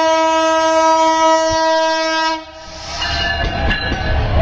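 Bangladesh Railway diesel locomotive sounding one long, steady horn blast that cuts off about two seconds in, followed by the rumble and clatter of the train passing close by.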